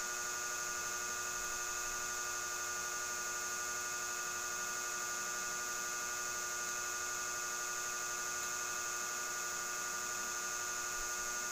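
Steady electrical hum made of several fixed tones, low to high-pitched, over a faint hiss, holding an even level with no change.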